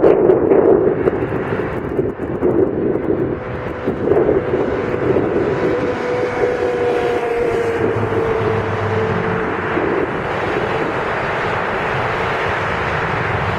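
Embraer E-175 jet's twin turbofan engines running at taxi power as it turns onto the runway: a steady jet roar with a thin whine that drifts slightly lower in pitch in the middle. Gusty wind buffets the microphone in the first couple of seconds.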